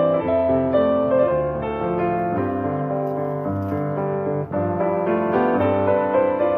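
Background piano music: a gentle melody over steady bass notes.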